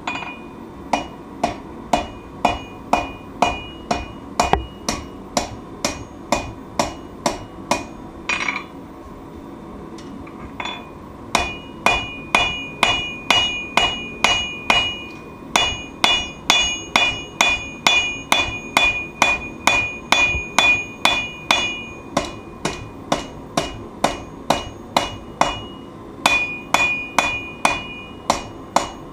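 Steady hand-hammer blows on a knife blank on an anvil, about two a second, each with a bright metallic ring. The hammering breaks off for a couple of seconds a little before the middle, then resumes faster.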